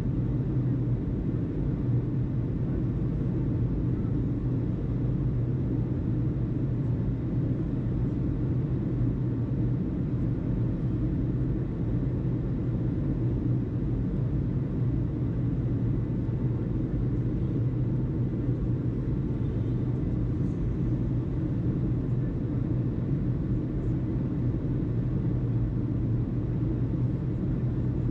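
Steady low rumble, even and unbroken throughout, with no distinct events.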